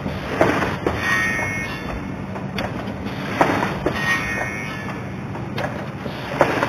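Automatic aluminium hinge cutting and drilling machine running: a steady motor hum with sharp metallic knocks at irregular intervals from its moving parts.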